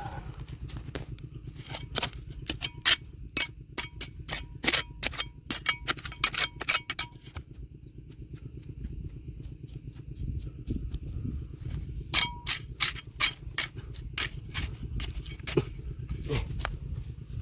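Metal digging tool clanking and scraping against rocks, many sharp ringing strikes in two runs, over a steady low motor hum.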